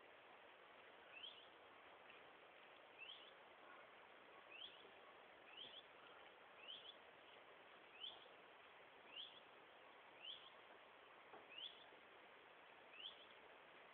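A bird's short rising call note, repeated about once a second, faint over a steady hiss.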